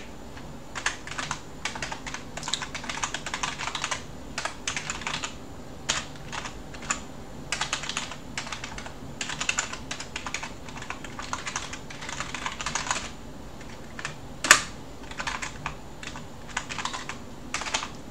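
Typing on a computer keyboard: quick runs of key clicks broken by short pauses, with one louder keystroke about three-quarters of the way through.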